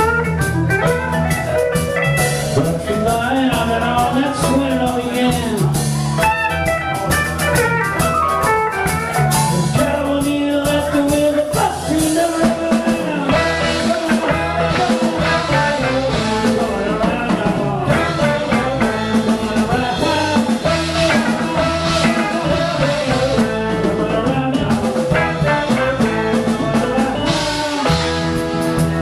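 Live rock band playing an instrumental jam: a bowed violin carries gliding melodic lines over electric guitar, keyboard, bass and drum kit.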